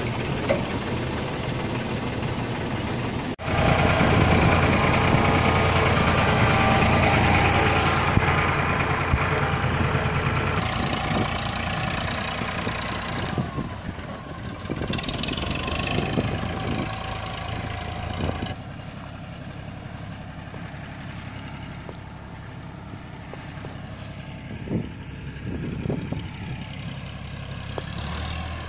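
Diesel farm machinery running: a combine harvester while grain pours from its unloading spout into a trailer, then, after cuts, a tractor engine running, loudest at first and quieter later as the tractor tows the loaded trailer away.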